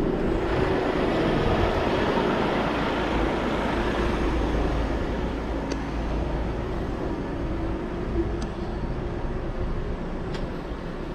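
Heavy truck's diesel engine idling steadily, a low continuous rumble that slowly fades, with a few faint ticks.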